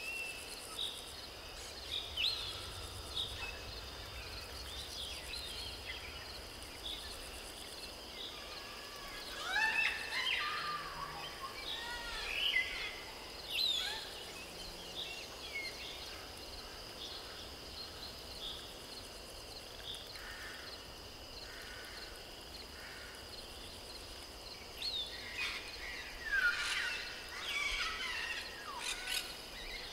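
Outdoor nature ambience: a steady high insect drone with scattered bird chirps and calls. The calls are busiest about ten to fourteen seconds in and again near the end.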